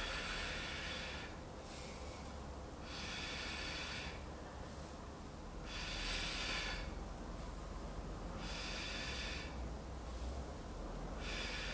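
A woman breathing rhythmically through a Pilates single-leg stretch, with a strong, noisy breath about every three seconds as she breathes out on each leg extension.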